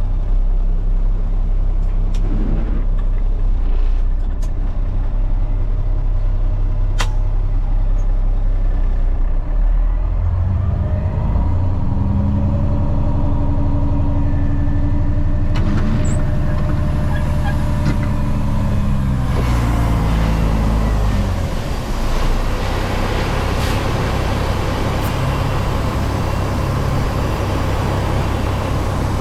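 Freightliner truck's diesel engine running, revving up about a third of the way in, holding at higher speed for several seconds, then dropping back to a lower speed.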